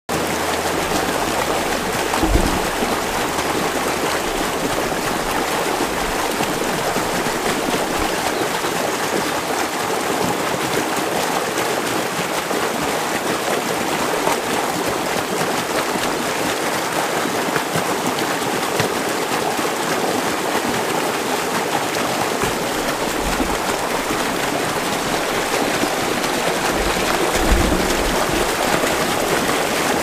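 Small forest stream running over rocks and a short cascade: a steady, even rush of water. There are a couple of brief low bumps, one about two seconds in and one near the end.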